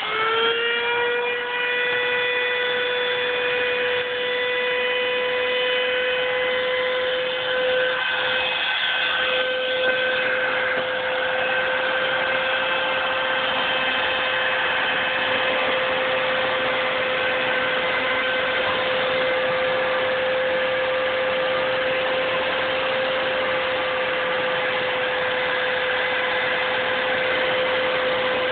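Router motor on a homemade Bluumax CNC router running at full speed with a steady high whine, settling onto its pitch within the first second. From about eight seconds in, the 1/8-inch two-flute carbide straight bit starts cutting into the board, adding a rough cutting noise under the whine.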